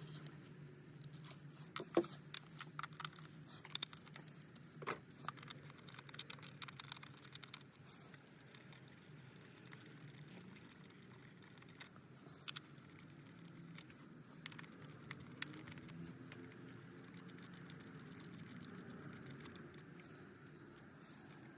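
Hand tools clicking and clattering on metal as the bolts holding the ignition coils over the spark plugs are undone: sharp irregular clicks, thick for the first several seconds, then only a few. A faint steady low hum runs underneath.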